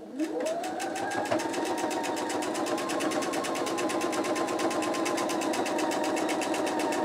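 Electric sewing machine started with the foot pedal. Its motor whine rises to speed in about the first second, then runs steadily with rapid, even needle strokes while stitching a seam through the quilt pieces.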